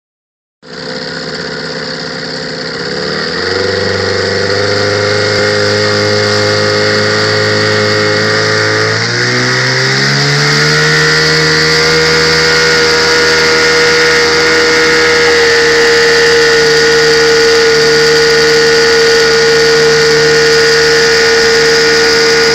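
Johnson Sea-Horse two-stroke outboard motor running under way, its pitch stepping up as the throttle is opened, about 3 seconds in and again about 9 seconds in, then holding steady at speed.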